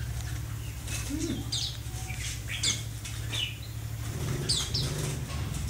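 Caged red-whiskered bulbuls giving several short, high chirps that fall in pitch, with wings fluttering in the cage. A low steady hum runs underneath.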